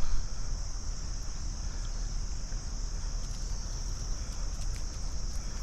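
A steady, high-pitched chorus of insects, with a low rumble underneath and a brief bump right at the start.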